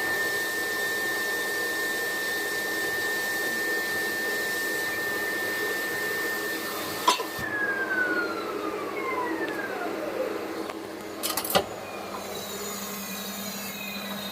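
CNC bangle-cutting machine's spindle running with a steady high whine. About halfway through there is a click and the whine slides steadily down in pitch as the spindle spins down. A couple of sharp clicks follow near the end.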